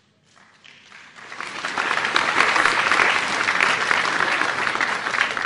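Large seated audience applauding. The clapping swells over the first second or two, holds loud, and begins to fade near the end.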